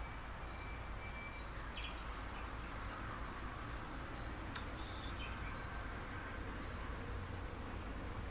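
A cricket-type insect trilling steadily in one high, rapidly pulsing tone, with a few faint handling clicks.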